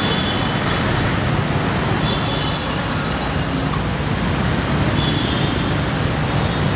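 Steady urban road-traffic noise, a continuous hum of vehicles with no single one standing out, with faint high-pitched tones coming and going.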